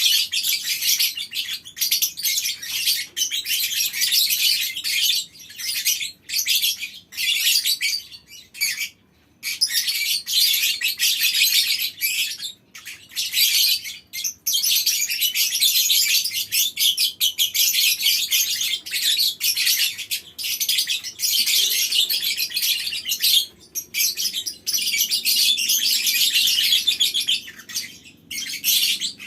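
A colony of lovebirds chattering in long, unbroken runs of shrill, high-pitched calling (the long 'ngekek' chatter), each run lasting several seconds and broken by short pauses.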